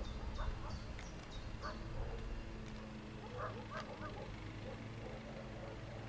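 White stork chicks giving short, scattered begging calls, a few near the start and a cluster about halfway through, over a steady low rumble.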